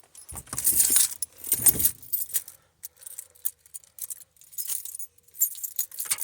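A bunch of keys jangling and clinking, with handling rustle: two louder rustling bursts in the first two seconds, then scattered light clicks and jingles.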